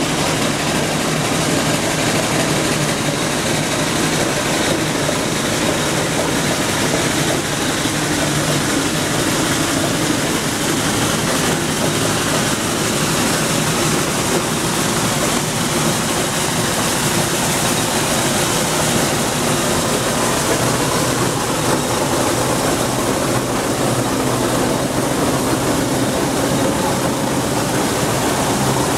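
1913 Aveling & Porter 10-ton steam roller working up a steep hill on the road, a steady, even noise with no clear beat.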